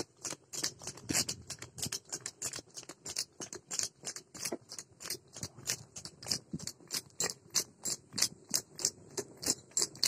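Hooves of a cart-pulling water buffalo clattering on a paved road at a fast, even trot, about five strikes a second.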